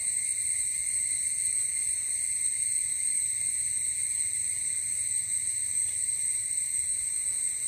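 Steady high-pitched chorus of insects, several thin tones held without change.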